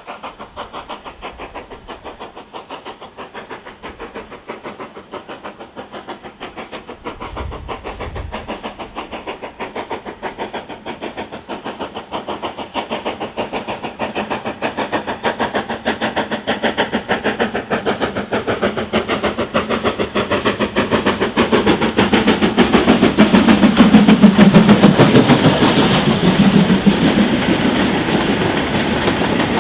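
Steam locomotive working a train, its rapid, even exhaust beats growing steadily louder as it approaches, loudest about 24 seconds in, then easing slightly as it passes.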